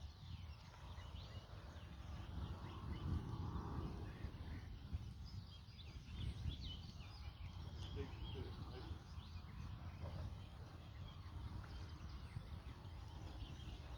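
Wind buffeting the microphone in gusts, with small birds chirping faintly throughout.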